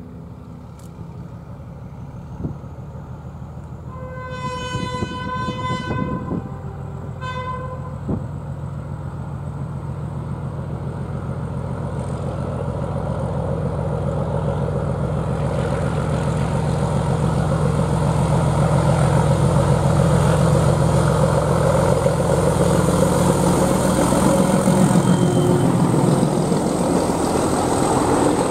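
Diesel locomotive sounding its horn, one long blast then a short toot, as it approaches. Its engine grows steadily louder as it works towards and past, dropping in pitch as the locomotive passes near the end. The coaches then roll by with wheel noise on the rails.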